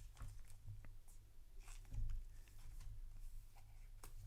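Faint rustling and light clicks of a trading card being handled and slid into a plastic card sleeve, with a slightly louder bump about two seconds in, over a low steady hum.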